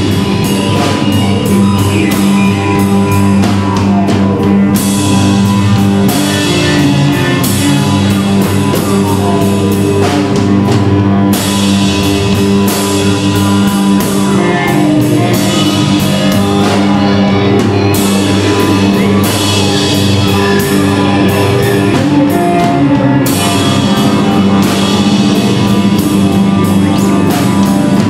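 Live improvised rock-leaning band jam: a drum kit played busily, with a steady bass line and electric guitar, mixed with electronic machines and loops.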